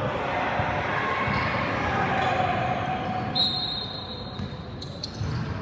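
Basketball bouncing on the court during a game, amid continuous noise of players and spectators with some voices mixed in.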